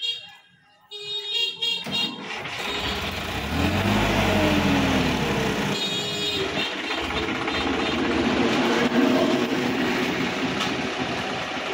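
Background music for about the first two seconds. Then a Sonalika DI-50 RX tractor's diesel engine revs up hard under heavy load as the tractor tries to climb out of the muddy field edge: its pitch rises and falls about four seconds in, and it then runs on steadily at high revs.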